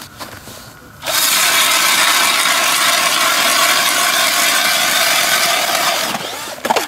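Cordless drill turning a Nero Classic ice auger through an adapter, boring into lake ice: a steady motor whine over the grinding of the auger's blades cutting ice. It starts about a second in, runs for about five seconds and tapers off, and a short knock follows near the end.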